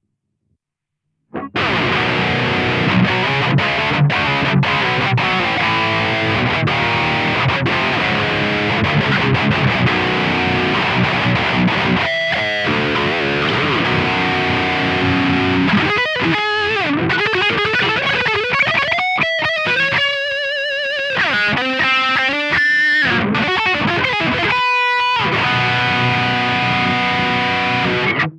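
High-gain distorted electric guitar played through a Kemper amp profile, starting after about a second of silence. Dense, low riffing gives way about halfway through to stop-start phrases with held higher notes and short breaks.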